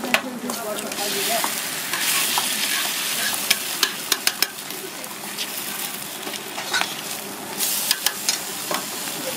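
Roti flatbread, a slice of ham and an egg sizzling on a hot flat-top griddle, with metal tongs clicking against the steel several times. The sizzle swells louder about two seconds in, as the egg goes onto the griddle, and again near the end.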